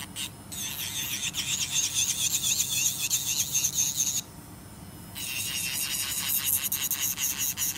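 Electric nail file (e-file) grinding an acrylic nail: a high, wavering whine. It stops for about a second around four seconds in, then starts again.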